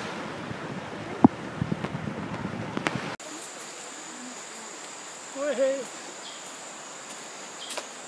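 Stream water rushing over rocks, with a few sharp clicks and knocks, cuts off after about three seconds. Quieter forest ambience follows: a steady high insect drone and, midway through it, a brief low hum of a man's voice.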